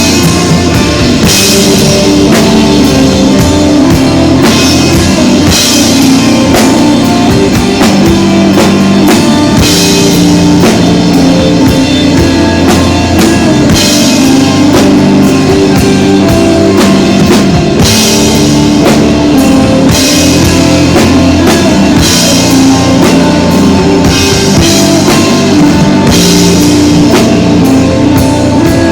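Instrumental desert rock played live by a band: drum kit with cymbal crashes every few seconds over sustained bass and electric guitar notes, with no singing.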